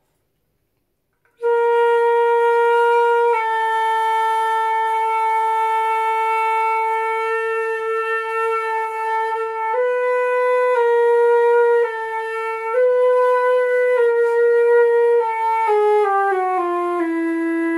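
Concert flute playing long tones: after a short pause it holds one note for several seconds, then moves back and forth between neighbouring notes, and near the end steps down through several notes in a row.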